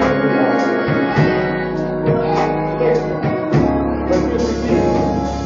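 Live gospel music: an electric keyboard playing with a drum kit keeping time.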